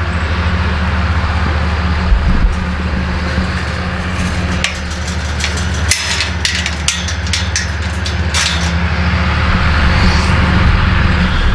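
A steady low motor hum, with a run of sharp clicks and rattles from about four and a half seconds in, lasting about four seconds.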